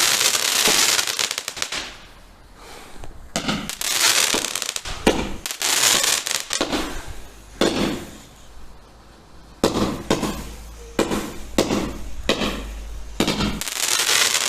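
Consumer garden fireworks going off: long hissing spurts near the start and again near the end, with a run of sharp cracks and pops in between.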